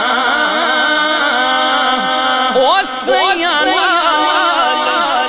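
A man singing a Punjabi devotional poem into a microphone, holding long wavering notes, with a sharp rising phrase about halfway through. The voice carries a heavy echo effect that repeats each phrase about twice a second.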